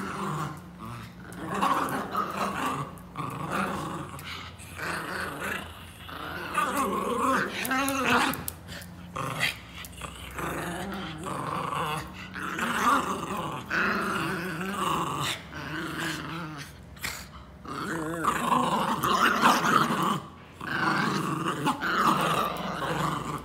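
Two miniature pinschers growling as they play tug-of-war over a rubber ring toy. The growls come in rough runs of a second or two with short breaks, and get louder near the end.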